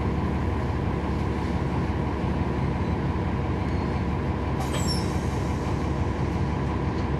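Cabin sound of a NABI 40-SFW transit bus with its Cummins ISL9 diesel engine running steadily, a constant low drone with road noise. A short high squeak comes about four and a half seconds in.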